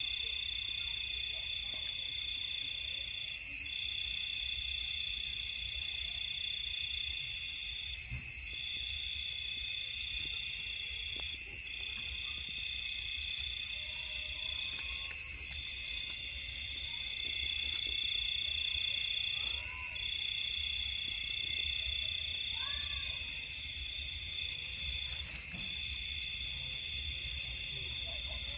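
Night insect chorus: several crickets trilling steadily at different high pitches, one trill breaking off briefly every few seconds. A few faint short calls come through in the second half.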